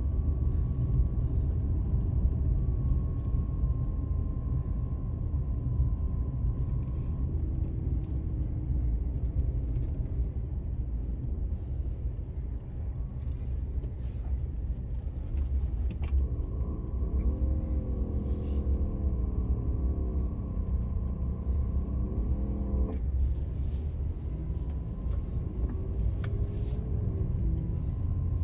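Car driving slowly, heard from inside the cabin: a steady low road-and-engine rumble. For several seconds past the middle a pitched hum wavers up and down, then cuts off suddenly.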